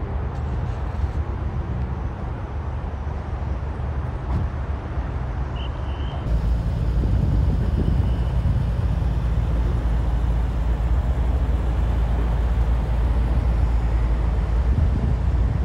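Car engines and traffic in a busy parking area, a steady low rumble that gets louder about six seconds in. A brief high squeal comes just before the rise.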